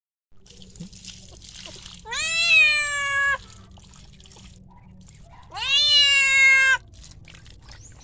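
A domestic cat meowing twice, two long drawn-out meows that rise at the start and are then held, the cries of a cat that is afraid of water.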